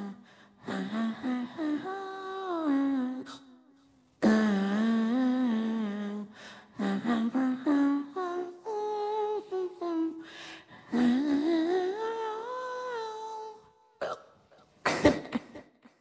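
A woman humming a melody in phrases of a few seconds each, broken off sharply by hiccups, with two short, sharp hiccups near the end.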